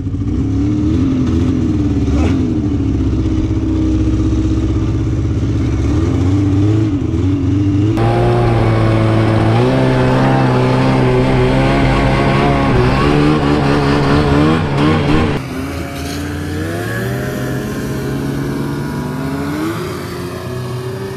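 Yamaha VK 540 snowmobile two-stroke engines running and revving, the pitch rising and falling. A second, higher engine note joins about eight seconds in and drops away just past the middle, leaving the lower engine running on.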